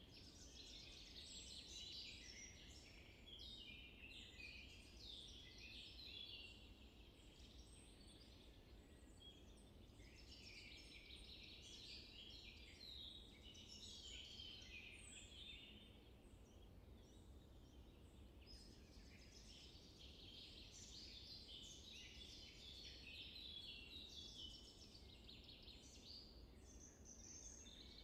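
Faint chorus of small birds chirping and twittering in quick clusters, over a low background hiss.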